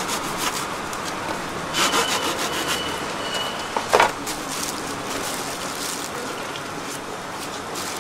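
A knife sawing through the crisp crust of bread rolls, a scratchy, crackling rasp. There is a sharp knock about four seconds in.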